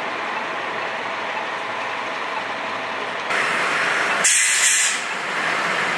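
Steady noise of vehicles running on a city street, louder from about three seconds in, with a short hiss a little after four seconds.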